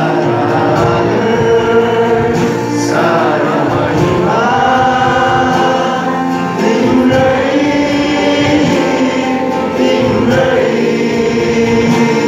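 Nepali Christian worship song (bhajan): a group of voices singing together over instrumental accompaniment, loud and unbroken.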